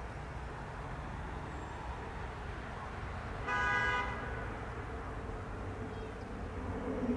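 Pratt & Whitney PT6A turboprop of a Pilatus PC-12/45 running steadily after landing, heard at a distance as a low hum under a noisy bed. About three and a half seconds in there is a short horn-like toot lasting about half a second, and the low engine sound grows louder near the end.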